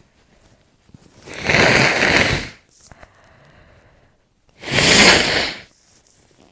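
A person blowing their nose hard twice, each blow about a second long, clearing a running nose.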